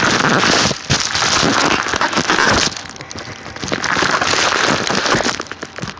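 Padded mailer envelope crinkling and rustling close to the microphone as it is handled, in two loud stretches with a short lull about halfway.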